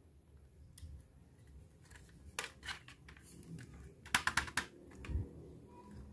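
Hard plastic toy makeup palette being handled: a couple of light clicks, then a quick cluster of sharp plastic clicks about four seconds in, followed by a soft thump.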